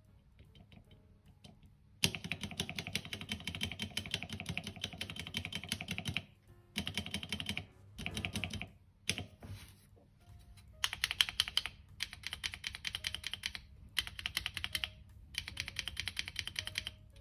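Keys of a mechanical keyboard clacking in rapid runs of presses. It starts with one long run of about four seconds, then several shorter bursts separated by brief pauses, over faint background music.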